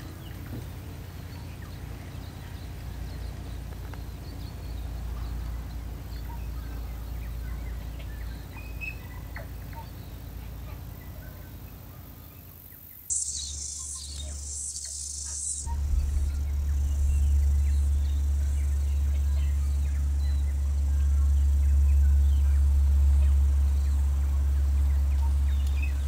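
Outdoor ambience: faint scattered bird chirps over a low rumble. About 13 seconds in the sound changes abruptly to a high hiss in two short pulses, then a louder steady low rumble takes over.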